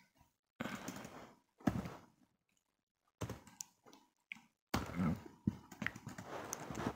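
Computer keyboard keys clicking as a short phrase is typed, with a few soft breaths close to the microphone. There are dead-silent gaps between the bursts.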